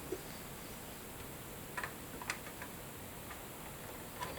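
A few faint, scattered metallic clicks and taps as the processor socket's retention lever and load plate are handled.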